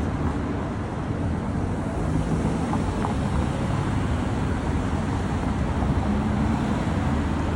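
Steady street ambience: a low rumble of traffic mixed with wind on the microphone, no horns.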